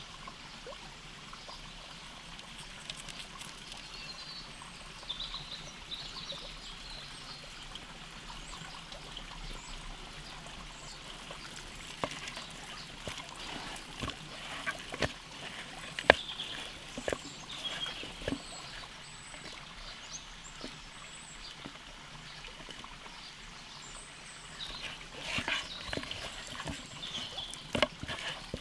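Raw chicken pieces being rubbed by hand with salt and turmeric in a wooden bowl: irregular wet squishes and slaps, mostly in the second half, the sharpest about halfway through. Underneath, a stream trickles steadily and a bird chirps now and then.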